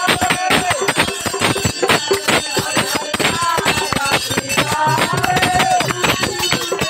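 Aarti music: bells and cymbals clanging in a fast, steady rhythm with drumming, under a held melody that rises, falls and repeats.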